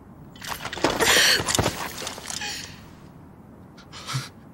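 A person's ragged, gasping sob, loudest about a second in, followed by a shorter breath near the end.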